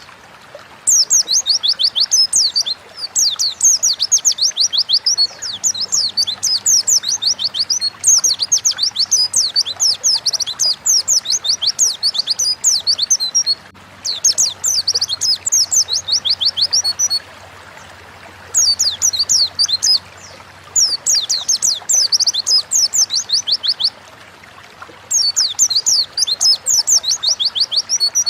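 A white-eye (pleci) singing a rapid, high-pitched song. Long phrases of quick falling notes are broken by short pauses.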